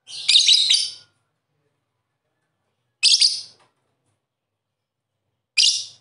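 Lovebird giving three bursts of high-pitched chattering chirps: a longer one of about a second at the start, a shorter one about three seconds in, and a brief one near the end.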